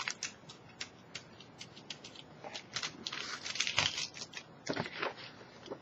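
Craft foil being rubbed onto a card with a small hand tool: irregular scratchy rubbing strokes and light taps on paper, densest about three seconds in.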